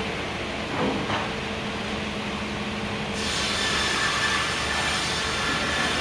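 A Mostly Printed CNC (MPCNC) machine running, with stepper motors humming steadily and a couple of short sweeping moves in the first second or so. A louder, wider noise joins about three seconds in.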